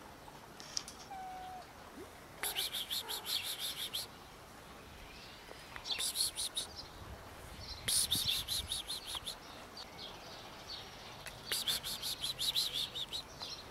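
Bird calls: a rapid, dry chattering repeated in four bursts of one to two seconds each.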